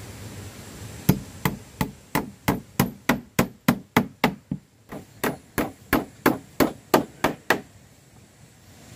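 Steel claw hammer striking nails in weathered wooden boards: a steady run of about twenty sharp blows, roughly three a second, with a short break about halfway.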